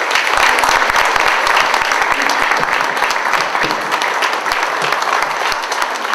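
A large audience applauding: dense, steady clapping that starts at once and eases slightly near the end.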